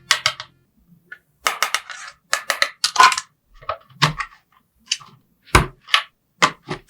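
Small hard plastic toy pieces clicking and tapping as they are handled, in a string of separate taps with short silences between.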